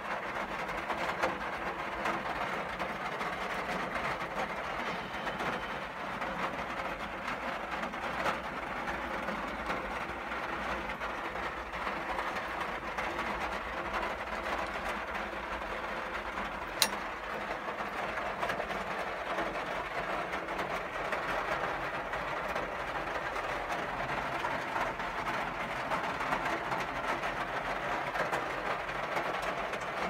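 A steady mechanical running noise, a motor with rushing air, with one sharp click about seventeen seconds in.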